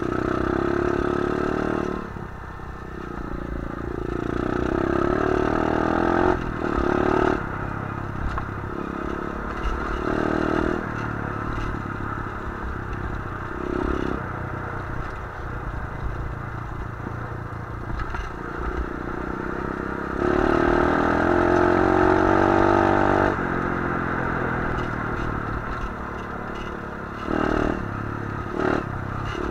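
125 cc pit bike's single-cylinder four-stroke engine being ridden hard, revving up and easing off in repeated surges, loudest about two-thirds through. Clattering and scraping from the bike running over rough dirt go on underneath.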